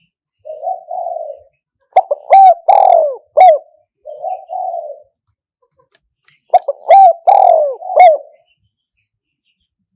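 Spotted dove cooing: two loud phrases of a few clipped, bending coos, each preceded by a softer, muffled coo, the lure call played to bring wild doves to a decoy trap.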